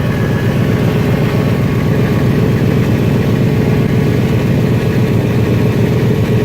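2001 Ford van's engine idling steadily, heard close up from underneath at the exhaust pipe, with a rapid even puffing from the holes rusted through the pipe: an exhaust leak.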